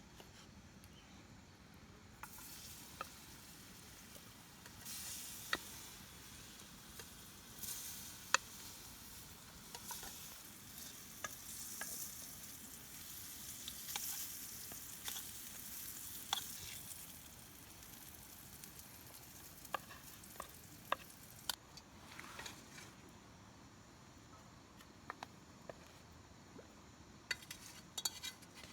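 A soft sizzling hiss begins about two seconds in and stops sharply about three-quarters of the way through, with scattered sharp crackles and clicks throughout.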